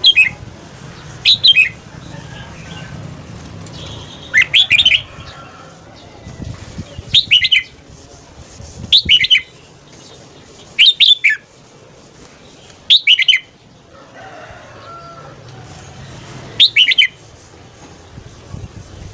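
Red-whiskered bulbul singing: eight short, bright phrases of quick falling notes, one every two seconds or so.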